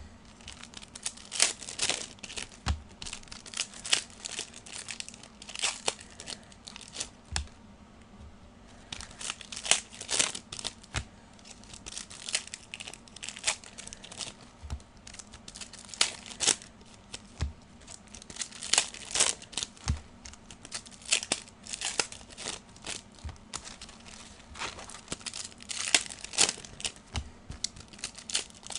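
Trading-card pack wrappers being torn open and crinkled by hand, in quick irregular crisp bursts, with a short lull about eight seconds in.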